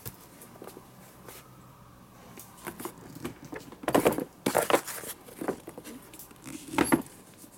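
Fabric tool bags with metal carry handles being handled and moved about: cloth rustling and scuffing, with a few louder knocks and rattles. The sounds start about three seconds in and are loudest around four to five seconds in and again near the end.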